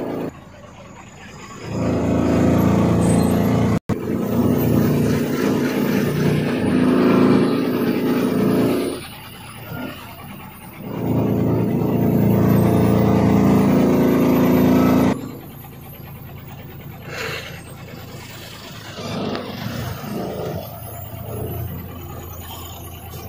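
Heavy truck engine running with a steady drone. It swells loud twice for several seconds at a time and drops back quieter in between and through the last part, with a momentary cut in the sound about four seconds in.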